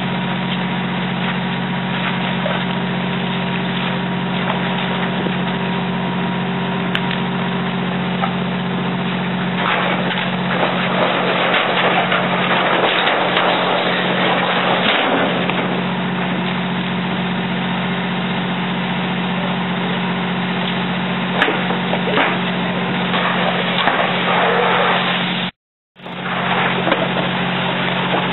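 Steady low drone of a fire engine running at the pump, under the broad hiss and crackle of a fully involved garage fire and hose streams. The noise swells for several seconds in the middle, with a few sharp cracks later on, and cuts out for a moment near the end.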